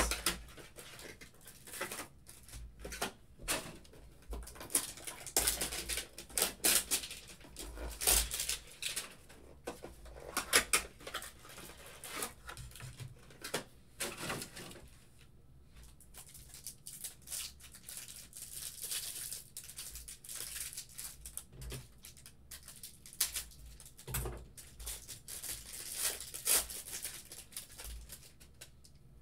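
Hands ripping open a 2019-20 Panini Mosaic basketball hanger box: cardboard and wrapping torn and crinkled, then cards rustled and shuffled. The crackling comes in irregular bursts, busiest in the first half and again in the second half, with a quieter spell about halfway through.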